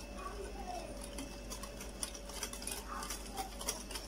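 Wire whisk beating a thin egg, sugar, oil and milk cake batter by hand in a cut-glass bowl, its wires clicking irregularly against the glass several times a second, over a faint steady hum.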